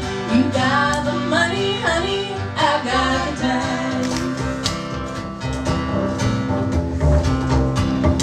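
Live country duet: two women's voices finish a sung line over strummed acoustic guitar and plucked upright bass. After about three seconds the singing stops and the guitar and bass carry on alone in an instrumental break.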